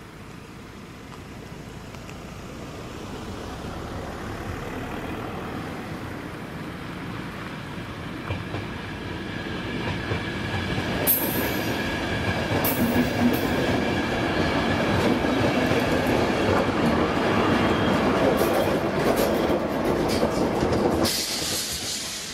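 A train approaching and passing close by: a rumble that grows for about ten seconds, then about ten seconds of loud wheel clatter with sharp clicks and a thin, steady whine, dropping away suddenly near the end.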